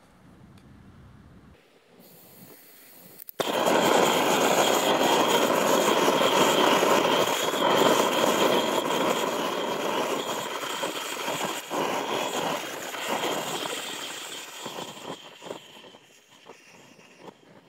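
Fire burning over Lego bricks and minifigures, a steady rushing roar of flame that starts suddenly about three seconds in and fades away near the end, with a few crackles as it dies down.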